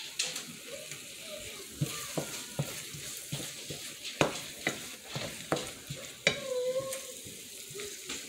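Eggs with tomato and dried little fish sizzling in a frying pan while being stirred with a wooden spoon, the spoon knocking and scraping against the pan at irregular intervals over a steady hiss of frying.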